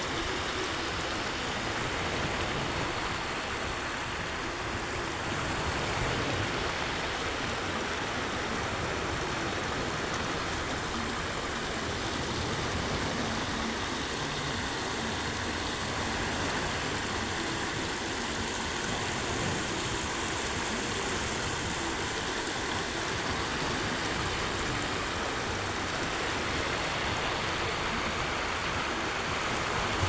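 Steady rush of water running down a stepped cascade fountain.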